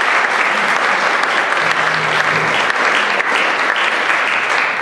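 Audience applauding, many hands clapping at once in a steady dense patter.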